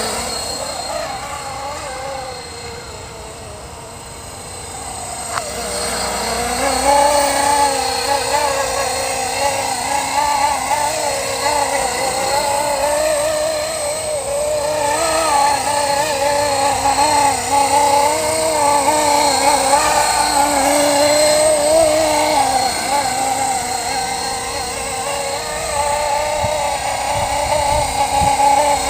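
Electric radio-controlled helicopter (Blade SR in a Hughes 500D scale fuselage) flying, its motor and rotor whine wavering up and down in pitch. It is quieter for the first few seconds, then louder from about six seconds in.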